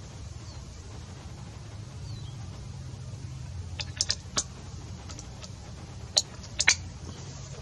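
Sharp clicks and snaps from an FX Wildcat .177 PCP air rifle being cycled and fired, in two quick clusters about four and about six seconds in. A steady low rumble runs underneath.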